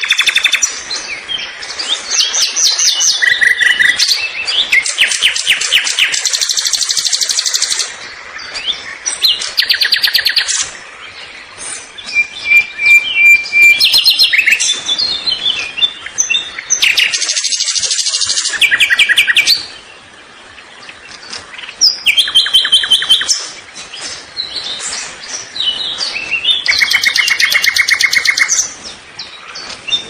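Birds singing and calling: runs of rapid high trills and short chirps, with a brief steady whistled note partway through, the song pattern changing every few seconds.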